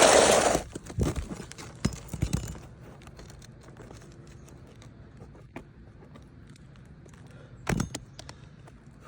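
Handling noise: a burst of rustling right at the start, a few light knocks over the next couple of seconds, then a single thump near the end.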